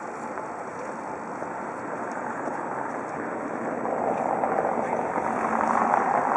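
Steady rushing of river floodwater flowing over a submerged street, growing louder in the second half.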